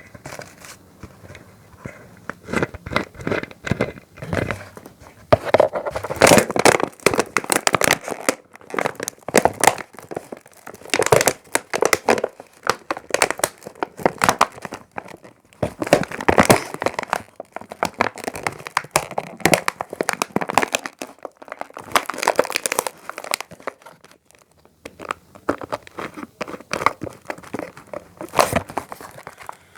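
Crumpling and crinkling of packaging or rubbish, handled close to the microphone: dense runs of sharp crackles in several bursts, with short pauses between them.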